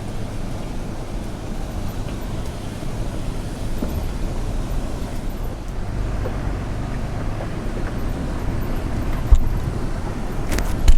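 Toyota Tacoma pickup crawling up a steep, rocky off-road climb with a steady low rumble from its engine and drivetrain. Two sharp knocks come near the end, about two seconds apart, from the camera being banged around.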